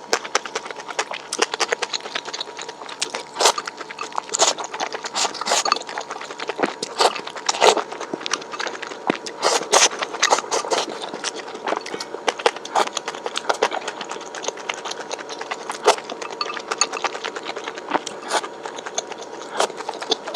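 Close-miked chewing of crunchy fried food, a dense, irregular run of crisp crackles and mouth clicks.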